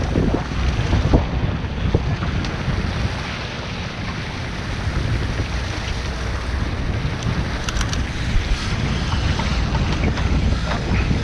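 Wind buffeting the microphone, with water rushing along the hull of a boat under way at sea as a steady rumbling wash. A few light clicks sound about two-thirds of the way through.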